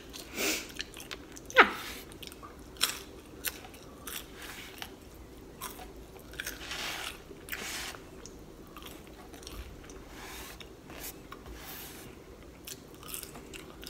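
Close-miked biting and chewing of crispy truffle fries: sharp crunches at irregular intervals, the loudest about a second and a half in, between softer chewing.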